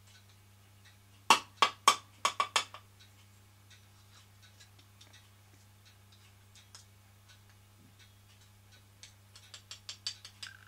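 A small spoon tapping against a small tin or block: a quick run of about seven sharp taps a second or so in, fainter scattered taps after, and another quick run of taps near the end, over a steady low hum.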